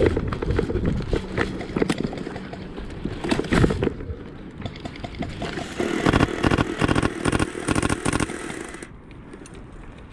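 Airsoft guns firing: rapid strings of sharp pops, densest from about six to eight seconds in, dying away about nine seconds in.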